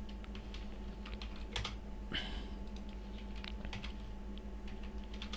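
Typing on a computer keyboard: scattered, irregular key clicks.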